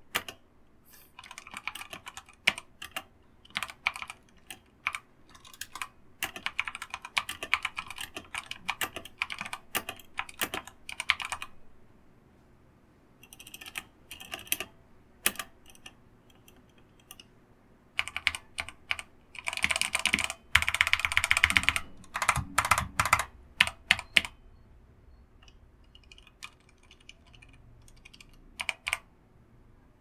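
Typing on a Rakk Ilis PBT mechanical keyboard with Outemu red linear switches: a steady run of key clicks, then a pause and scattered taps. From about 18 seconds in come repeated spacebar presses, louder and deeper, with a slight rattle.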